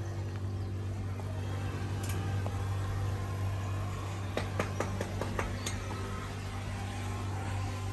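Steady low machine hum, with a few short sharp clicks and knocks a little past the middle.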